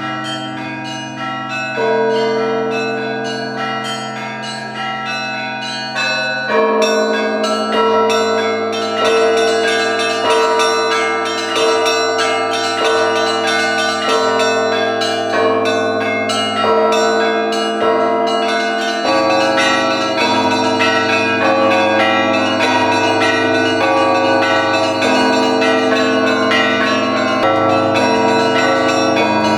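Russian Orthodox church bells ringing together in a peal (zvon). Smaller bells are struck in quick, dense patterns over a large bell's low hum. About six seconds in the ringing grows louder, with a mid-pitched bell striking a steady beat roughly once a second.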